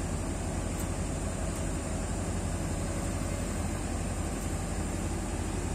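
Excavator's diesel engine idling steadily, an even low drone with no revving.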